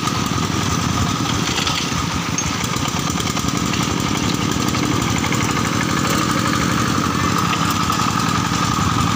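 Single-cylinder diesel engine of a single-axle farm tractor running steadily under load as it hauls a loaded trailer through water, with splashing water around it.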